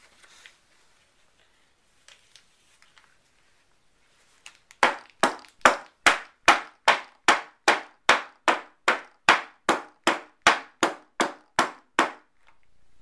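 A loaf soap mould full of fresh soap batter banged again and again on a wooden table, a steady run of about twenty sharp knocks at roughly three a second, starting about five seconds in. This tapping settles the batter and knocks out trapped air bubbles.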